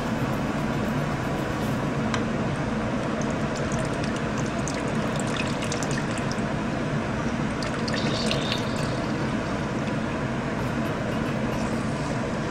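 Orange juice dripping and trickling from hand-squeezed oranges into a pot of hot melted lard, with scattered small crackles as the juice spits in the fat, over a steady low hum.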